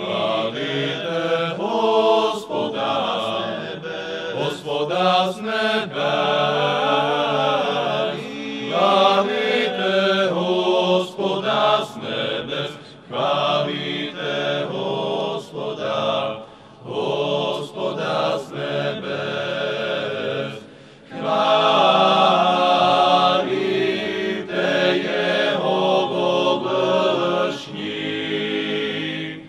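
A choir singing liturgical chant, in sustained phrases separated by brief breaks.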